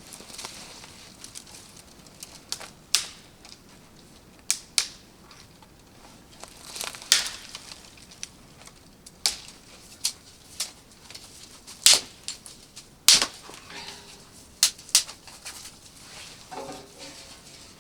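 Irregular sharp clicks and light knocks of things being handled and set down, with a short stretch of scraping about seven seconds in.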